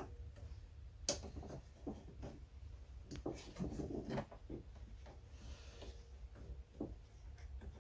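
Small clicks and knocks of a lawn mower carburetor and its linkage being handled and fitted by hand as it is bolted back on. There is a sharp click about a second in and a cluster of knocks in the middle, over a low steady hum.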